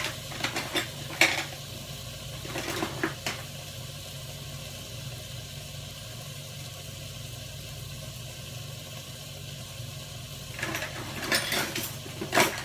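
Spoon and small containers clinking and tapping as ingredients are handled, in a cluster of sharp clicks over the first three seconds and again near the end, with a steady low hum underneath.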